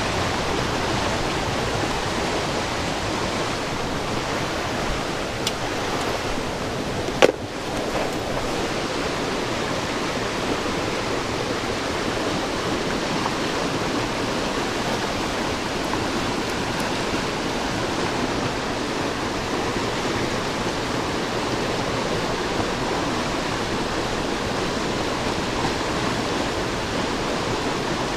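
Creek water rushing steadily, with a single sharp click about seven seconds in.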